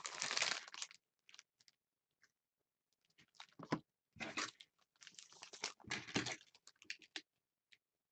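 Foil wrapper of a trading-card pack crinkling and tearing as it is opened, in short irregular bursts with a near-silent pause of about two seconds in between.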